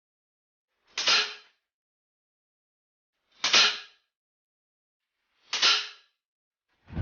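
Three shots from a Huben K1 PCP air rifle, each a sharp crack that dies away quickly, spaced about two to two and a half seconds apart.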